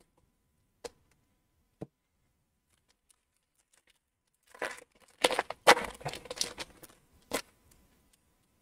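Foil wrapper of a hockey card pack being torn open and crinkled by hand: two faint clicks, then a cluster of sharp rips and crackles a little over halfway in, ending with one last snap.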